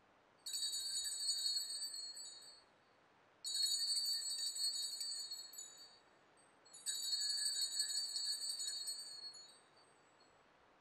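Altar bells shaken three times in high, jingling peals of about two seconds each, fading after each ring. They are rung at the elevation of the consecrated host.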